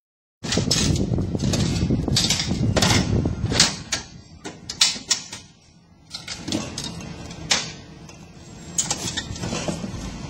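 Metal hand truck rattling as it rolls over paving stones, with sharp clanks and knocks as it is set against a refrigerator and the fridge is tipped back onto it. The sound goes quiet for a moment about halfway through.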